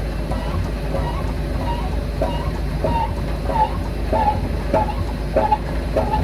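Short squeaks repeating about twice a second, growing louder after the first couple of seconds, over a steady low hum. The squeaks are most likely from a press tool being worked as a new front wheel bearing is pressed in.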